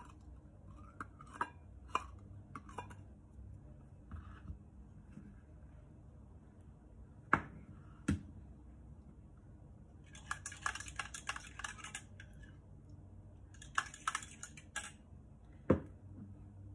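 Scattered knocks and clinks as a small stainless steel bowl holding blocks of palm sugar is handled and set down on a plastic cutting board, the loudest about seven seconds in and again near the end. Two short spells of quick rustling and scraping handling noise come in between.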